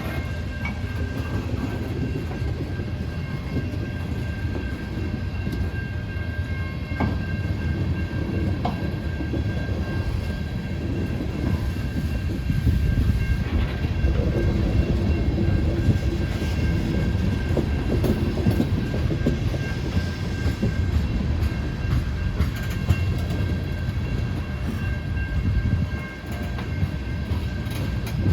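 Ethanol freight train rolling past: a continuous rumble of wheels on rail with clickety-clack over the rail joints, growing a little louder about halfway through.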